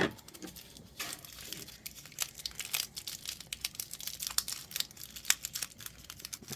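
Thin plastic packaging crinkling and crackling as a miniature is unwrapped by hand, a dense run of crackles starting about a second in, after a sharp click at the very start.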